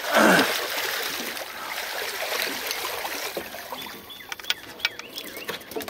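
Water splashing as a striped bass thrashes in a landing net and is lifted out of the river, with water streaming and dripping off the net. The loudest splash comes right at the start; a few sharp knocks near the end as the net comes aboard.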